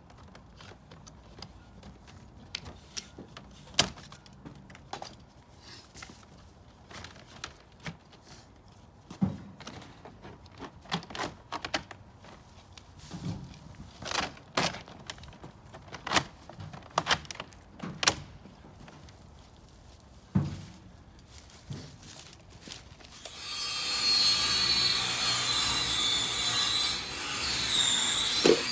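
Scattered knocks, taps and clicks of metal skirting panels being fitted by hand into the trim at the base of a mobile home. In the last five seconds a much louder, steady whine with hiss takes over, its pitch dipping near the end.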